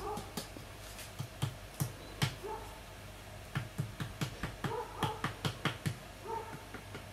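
A flat wooden paddle tapping against the rim of a large unfired clay jar, several quick irregular strokes a second in bursts with short pauses. A short pitched animal call, like a small dog whimpering, recurs every second or two underneath.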